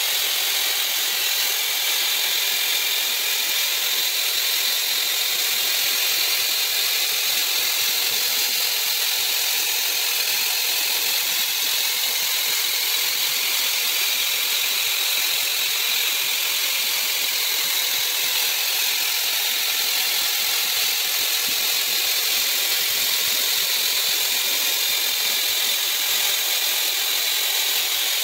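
Flame spray-welding gun hissing steadily, an even high rush of gas and flame, as it builds up metal on a worn hydraulic screw shaft turning in a lathe.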